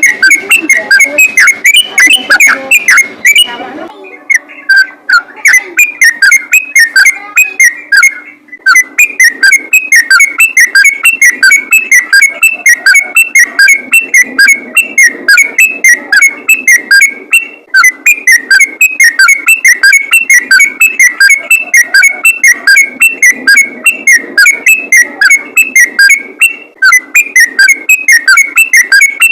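Yellow-vented bulbul (trucukan) singing a fast, unbroken run of loud whistled notes, several a second, with a brief break about eight seconds in.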